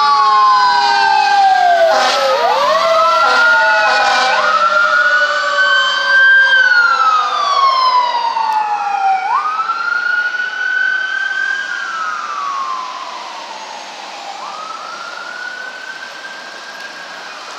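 Sirens of a fire engine and a fire-department rescue ambulance passing one after the other, two rising-and-falling wails overlapping, with a few short blasts about two to four seconds in. The wails fade into the distance over the last few seconds.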